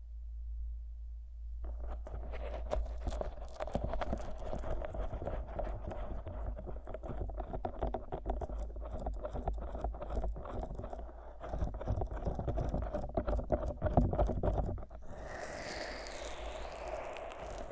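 Fingers massaging the Vaseline-coated silicone ears of a 3Dio binaural microphone, with a dense, sticky crackling rub that starts after about a second and a half. Near the end it changes to a smoother, brighter rubbing. A low hum runs underneath.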